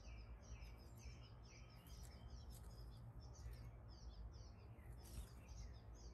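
Faint bird chirping: a quick, busy run of short high notes, over a low steady rumble.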